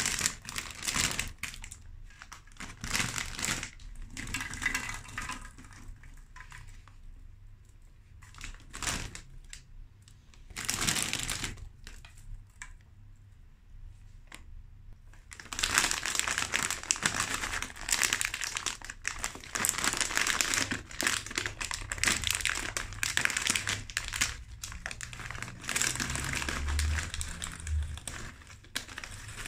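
Plastic snack bags crinkling as they are handled and emptied, in short bursts over the first half, a quieter spell in the middle, then steady crinkling in the second half as a bag of pretzel sticks is opened and reached into.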